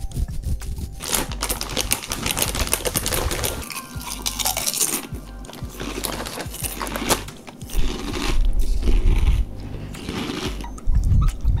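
Close-miked ASMR sounds: fingertips scratching through a beard right at the microphone, a dense crackly scratching. Later come low rumbling gusts of breath blown onto the microphone.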